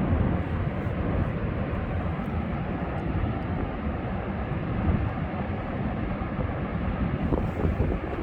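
Ocean surf and wind: a steady, dense rushing noise, heaviest in the low end, with no distinct breaks.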